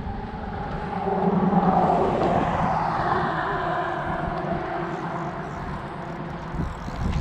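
A vehicle passing by: its noise swells about a second in and then fades away slowly, dropping in pitch as it goes.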